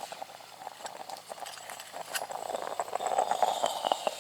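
Coffee brewing on a gas camping stove: a steady hiss with irregular clicks and crackles, louder in the second half, and a faint falling whistle near the end.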